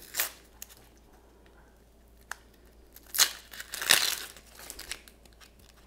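Knife cutting through an onion: a few separate, irregularly spaced cuts, the longest and loudest about four seconds in.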